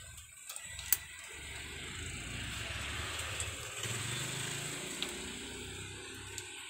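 A motor vehicle engine running, its pitch rising about four seconds in, with one sharp click about a second in.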